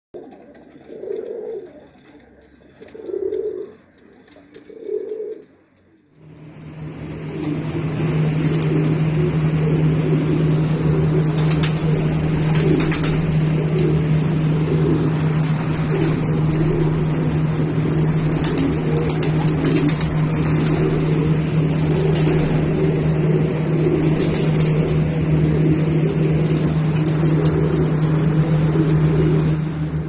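Domestic pigeons cooing: three separate coos in the first six seconds. About six seconds in, a loud steady low hum comes up and continues, louder than the coos.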